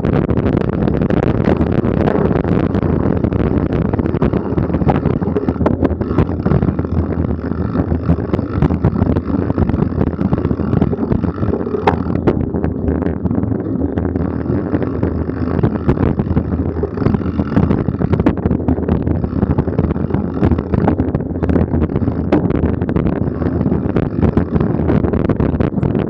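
Mountain bike rolling fast along a dirt forest trail: steady wind rush on the microphone and tyre rumble, broken by frequent small knocks and rattles as the bike goes over bumps.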